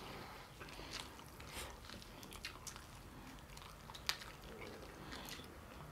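Faint chewing and mouth sounds of someone eating rice and curry, with scattered soft clicks and one sharper click about four seconds in.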